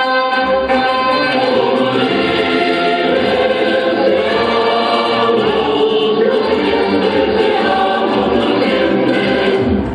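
Recorded choir singing a slow, solemn anthem, voices held in long sustained chords. It breaks off at the very end as a percussive track begins.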